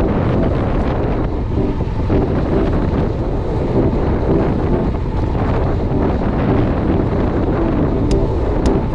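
Wind buffeting the microphone: a loud, steady low rumble with a few sharp clicks near the end.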